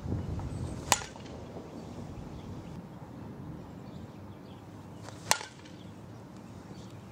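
Softball bat striking a softball off a batting tee, two sharp hits about four seconds apart, each with a short ringing trail.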